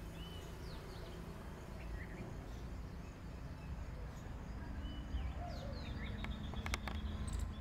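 Birds chirping and calling over a steady low rumble that grows slightly louder, with a few sharp clicks near the end.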